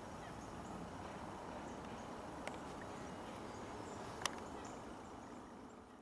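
Outdoor winter ambience: a steady low hiss with faint, scattered high chirps of small birds around a feeder, and two short sharp high sounds about two and a half and four seconds in. The sound fades toward the end.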